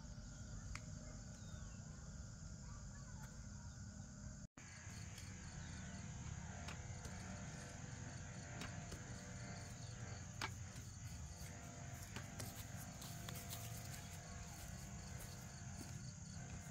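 Faint outdoor ambience: steady high insect chirring over a low rumble, with scattered small clicks and rustles. The sound cuts out for an instant about four and a half seconds in.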